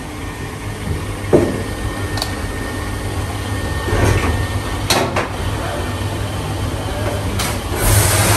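Steady low machine hum with a few sharp metal knocks as a cylinder head and parts are handled in a parts-washing booth; near the end a hand spray gun starts with a loud hiss.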